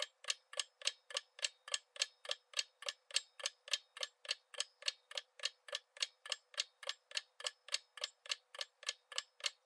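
Countdown-timer clock ticking sound effect: an even run of short sharp ticks at about three and a half a second, marking the time left to answer.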